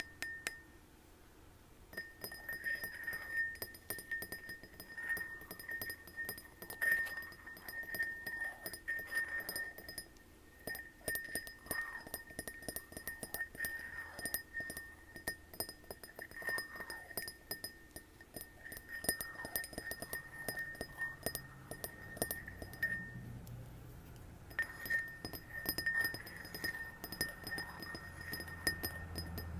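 Quick light taps on a glass holding water, the glass ringing at one steady pitch while the water moves and bends the tone. The tapping stops briefly at the start and again a few seconds before the end.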